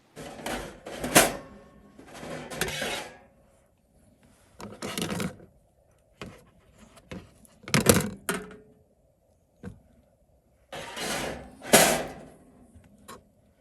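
Cookware and dishes being handled: several bouts of scraping and clattering, with sharp knocks about a second in, about eight seconds in and near twelve seconds.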